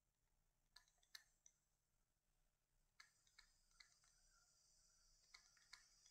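Near silence broken by a handful of faint, sharp clicks, the taps of handwriting being entered on a digital whiteboard. A faint high hiss comes in about three seconds in.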